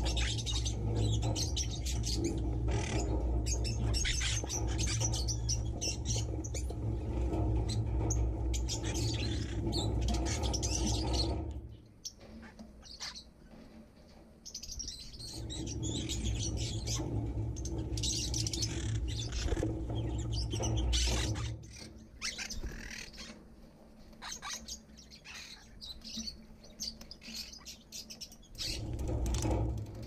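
A flock of small aviary birds (budgerigars, lovebirds and finches) chirping and chattering without pause. A steady low rumble runs under the birds for the first eleven seconds or so, drops away, returns from about fifteen to twenty-one seconds, and comes in again near the end.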